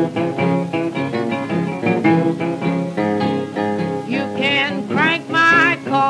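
Acoustic guitar break on a 1934 blues 78 rpm record, single picked notes and chords. About four seconds in, a woman's voice comes in over the guitar with a wavering sung line without words.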